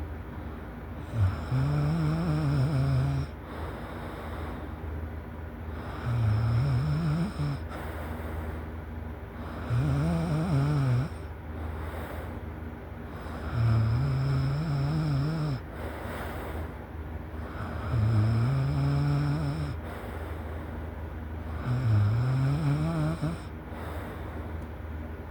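A person snoring in deep sleep. Six low, rasping snores come about every four seconds, each lasting a second and a half to two seconds, with quieter breaths between them.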